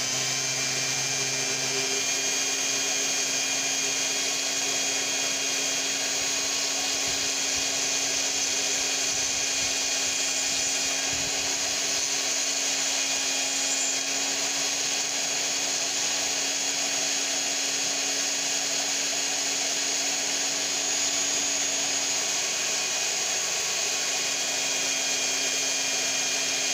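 Small pen-style rotary tool with a diamond bit running at a steady high speed, grinding into a wet mudstone: an even, unchanging high whine.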